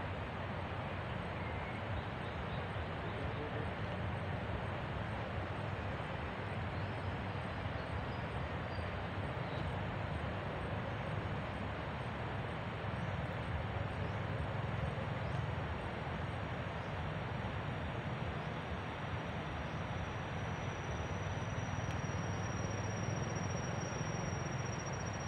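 Steady forest ambience: a continuous, even rush of noise with no distinct events. About twenty seconds in, a thin, steady high-pitched insect trill comes in above it.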